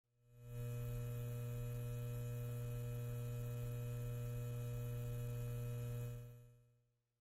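Low, steady electrical hum on the audio feed. It fades in over about half a second, holds level, and fades out about six seconds in.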